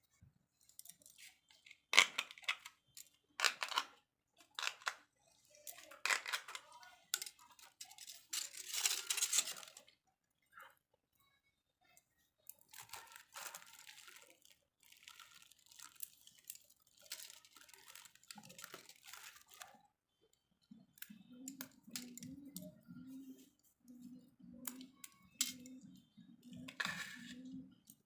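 Aluminium foil being torn off and crinkled as it is pressed over glasses, in irregular crackly bursts. Near the end a fainter low sound repeats steadily.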